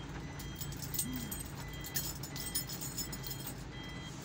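Heavy rain hitting a car's roof and windows, heard from inside the cabin: many small irregular ticks of drops over a low steady hum.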